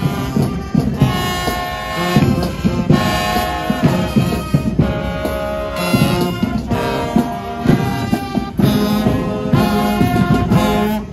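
Marching band brass section, trumpets, trombones and sousaphones, playing a tune together.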